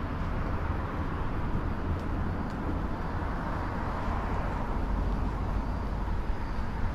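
Steady outdoor ambience from a camera carried along a road: a heavy low rumble under an even hiss, with no distinct events.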